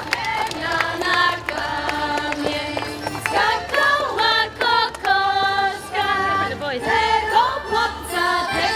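A group of folk-ensemble performers singing a folk song together in chorus.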